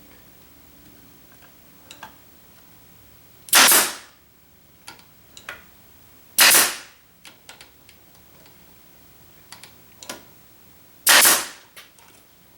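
A nail gun firing three times, a few seconds apart, each shot a sharp crack driving a nail into the divider board. Light tapping and handling of the wood comes between the shots.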